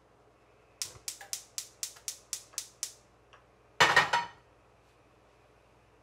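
Gas stove igniter clicking about nine times, roughly four a second, until the burner lights, then a metal saucepan clattering down onto the burner grate about four seconds in.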